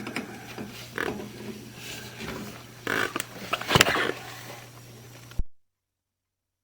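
Sewer inspection camera and push rod being fed into a kitchen-line cleanout: irregular knocks and scraping rubs, the loudest about three to four seconds in, over a steady low hum. The sound cuts off abruptly near the end.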